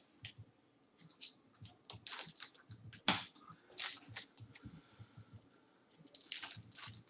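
Irregular clicks and rustles of plastic trading-card holders and a cloth drawstring bag being handled, the sharpest click a little past three seconds in.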